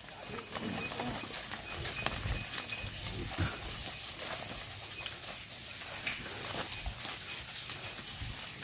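A herd of cattle on the move: a steady shuffle and rustle with many scattered small knocks and clicks, like hooves on the ground.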